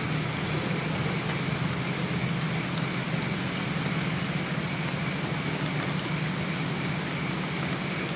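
Night insects calling: a steady high trill that pulses about three times a second, over a steady low hum.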